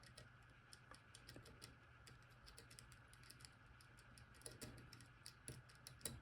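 Faint, irregular small metallic clicks of a disc-detainer pick turning the rotating discs inside an Abloy Classic padlock, with a few louder clicks near the end, over a low steady hum.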